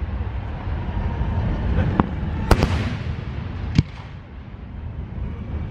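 Aerial firework shells bursting: three sharp bangs, the loudest about two and a half seconds in, over a steady low rumble from the display.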